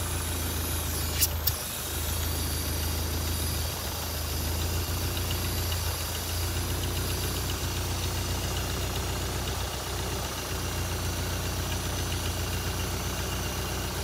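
Toyota 3S-GTE 2.0-litre turbocharged four-cylinder idling steadily, running again after years of sitting unused. Two sharp clicks sound about a second in.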